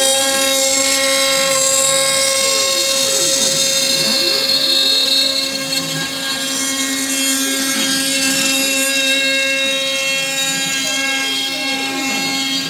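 CNC router cutting a wooden chopping board: a steady whine from the spindle, with fainter motor tones that glide down and back up about every four seconds.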